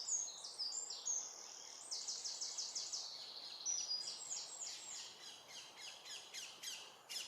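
A small songbird singing: a long run of quick, high notes repeated in fast series.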